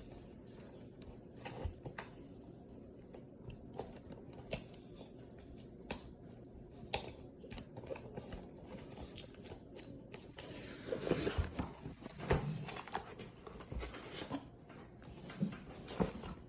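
Quiet, scattered rustling, scraping and small clicks of a cardboard snack box being opened and handled, with a busier stretch just past the middle.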